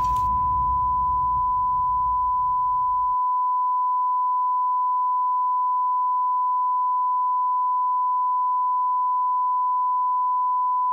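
A single steady high-pitched beep tone held without a break, a heart-monitor flatline effect. A low rumble sits under it and stops about three seconds in.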